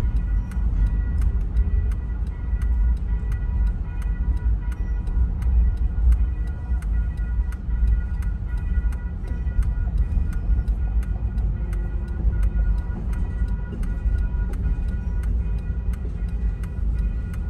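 A railroad grade-crossing bell rings steadily, a couple of strikes a second, over the deep continuous rumble of a long double-stack container freight train rolling through the crossing. Both are heard from inside a car.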